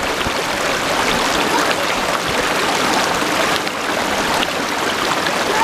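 Small rocky creek running steadily over a little cascade of stones.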